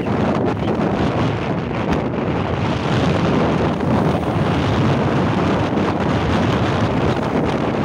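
Wind buffeting the microphone of a camera on a moving motorcycle, a steady loud rush with no clear engine tone through it.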